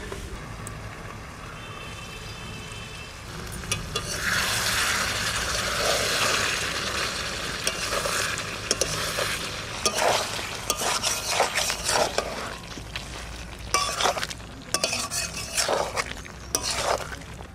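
Chicken curry with potato chunks and tomatoes sizzling in a metal karahi. About four seconds in the sizzle grows louder. From about ten seconds in, a long metal spatula stirs and scrapes the pan in short strokes, clinking against its sides.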